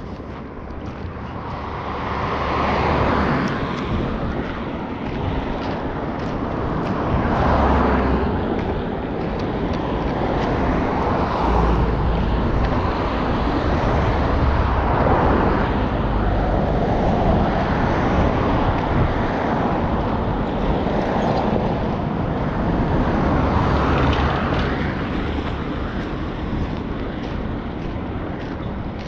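Road traffic: cars passing one after another, each swelling and fading, about six in all, with some wind rumbling on the microphone.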